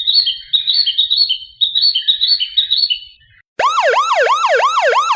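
Motion-sensor welcome doorbell's speaker playing a recorded birdsong of quick, repeated high chirps. About three and a half seconds in it switches to an electronic siren tone that sweeps up and down about three times a second.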